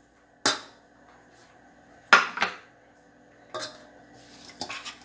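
Metal spoon knocking and scraping against a glass dish and a stainless steel mixing bowl: a few separate clinks, the loudest a quick pair about two seconds in.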